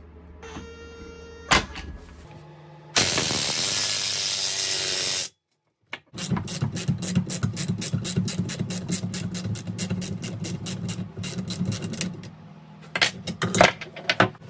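Workshop tool work on a car subframe being taken apart. A loud, hissing tool runs for about two seconds and stops abruptly. Then comes a long run of rapid, even clicks, about five a second, over a steady hum, like a ratchet or ratcheting power tool working a fastener, and a few sharp knocks near the end.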